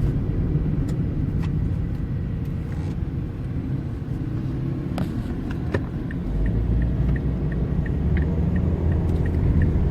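Steady low road and engine rumble inside a small moving car. About two-thirds of the way through, a regular ticking starts, about three ticks a second, like the car's turn indicator.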